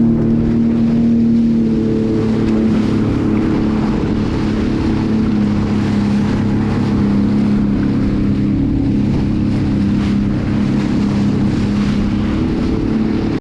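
Jet ski engine running at a steady speed, with wind on the microphone and water noise. The engine's pitch dips slightly a couple of times.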